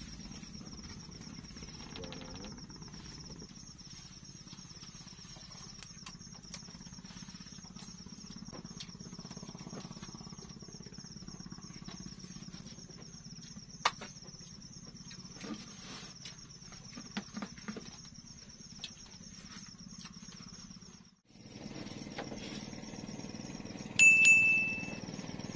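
Night insects chirring steadily, one high unbroken shrill, over a low hum, with scattered small clicks and knocks. The sound drops out briefly near the end, then a short, loud high beep sounds.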